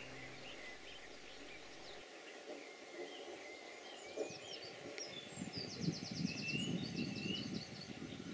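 Small songbirds singing in waterside trees: scattered high chirps and whistles, with a quick trill of rapidly repeated notes about two-thirds of the way through. A low rustling of movement runs under the second half.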